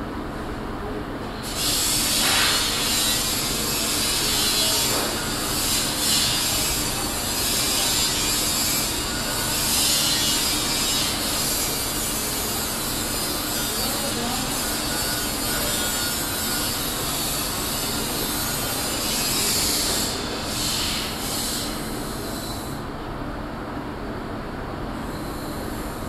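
Powder-coating spray gun hissing as compressed air blows coating powder out, starting about a second and a half in and ending in a few short bursts after about twenty seconds. A steady low hum runs underneath.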